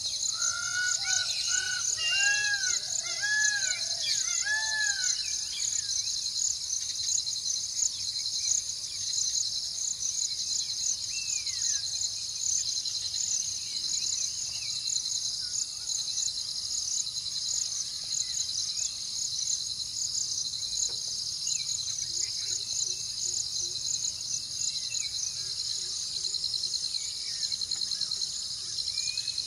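Dense chorus of insects making a rapid, high, pulsing trill throughout. In the first five seconds a bird gives a quick series of about seven arched notes, each rising and falling, and a few faint chirps follow later.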